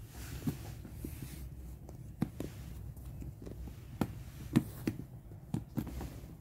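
Cardboard jigsaw puzzle pieces handled on a table: scattered light taps and clicks as the pieces are picked up, set down and pressed into the puzzle tray, over a low steady room hum.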